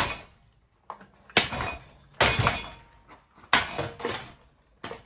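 Blades of a cheap ceiling fan being smashed: a series of about five sharp cracking impacts, roughly a second apart, each with a brief crackling tail.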